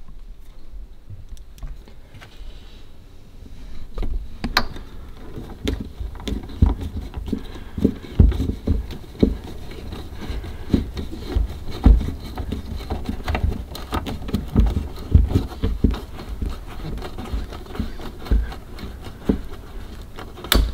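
Irregular clicks, knocks and low thumps of handwork as a screw is fitted into the aluminium curtain rail and driven in.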